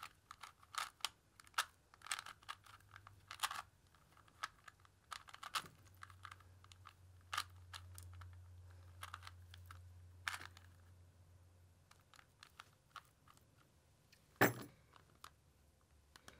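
Plastic Rubik's cube being twisted by hand: a run of quick clicks and clacks as the layers turn, thinning out after about four seconds, with one louder click near the end.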